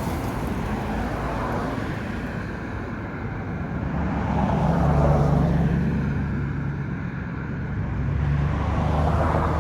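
Road traffic noise over a steady low engine hum, swelling twice as vehicles pass, around the middle and near the end.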